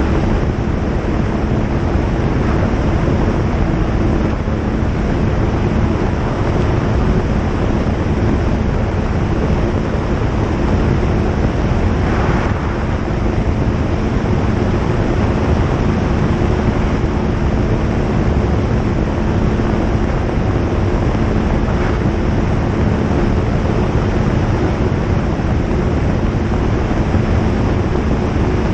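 Single-engine light aircraft's engine and propeller running steadily, a dense rushing drone with a low, even hum and no change in power.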